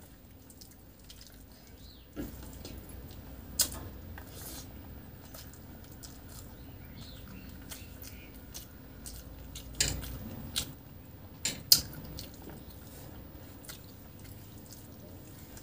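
Fingers mixing rice with fish curry and dal on a plastic plate, with chewing: soft squishing broken by a few sharp clicks and taps, the loudest of them near the middle.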